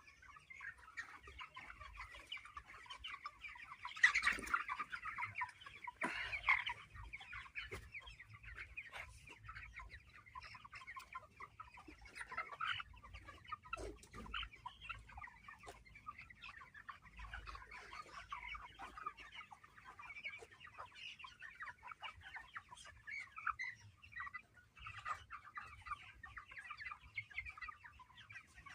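A flock of chickens in a poultry house clucking and calling continuously, many birds overlapping, with louder outbursts about four seconds in and again a couple of seconds later.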